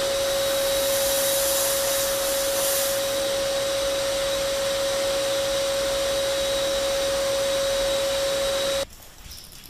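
Small quadcopter drone hovering, its motors and propellers giving a steady hiss with one held tone; it cuts off abruptly about nine seconds in.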